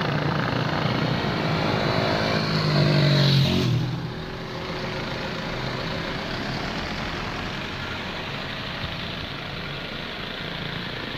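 An engine running and rising in pitch for the first few seconds over loud street noise. It cuts off abruptly, leaving a steady roar like passing traffic.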